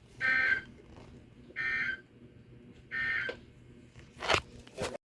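Emergency Alert System end-of-message signal: three short buzzy digital data bursts, evenly spaced a little over a second apart, marking the close of the marine warning. Two sharp clicks follow near the end.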